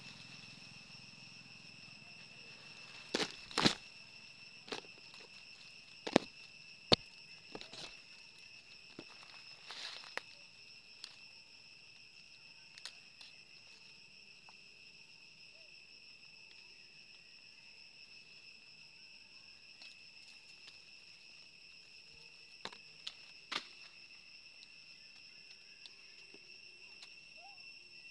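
Insects trilling steadily at a high pitch, with scattered sharp clicks and snaps: a cluster about three to four seconds in, the two loudest around six and seven seconds, and a few more around ten and twenty-three seconds.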